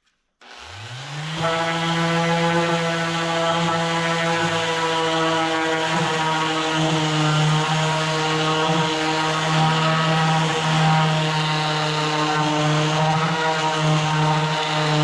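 Electric woodworking machine switched on: its motor spins up over about a second, then runs steadily at speed with a constant hum.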